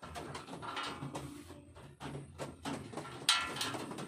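Young racing pigeons moving about a loft floor with scattered knocks and rustles, then a burst of wing flapping a little over three seconds in.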